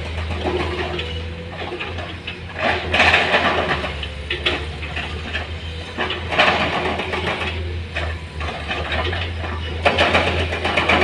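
Heavy-equipment diesel engine running steadily with a low hum, with louder noisy surges about three, six and ten seconds in.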